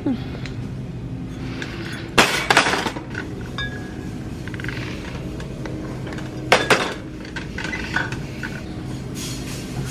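Glass wine bottles clinking against each other as they are handled and put into a shopping cart. The clinks come in two short clusters, about two seconds in and about six and a half seconds in, over a steady hum.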